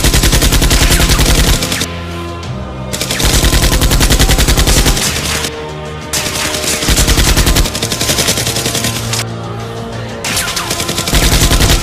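Rapid automatic-gunfire sound effect in four long bursts of rapid shots, laid over background music.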